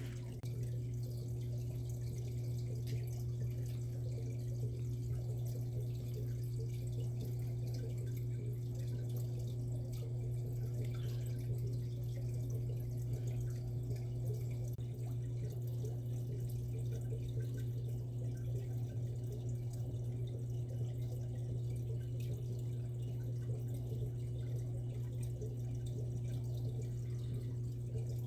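Aquarium filter running: a steady low hum with water trickling and dripping.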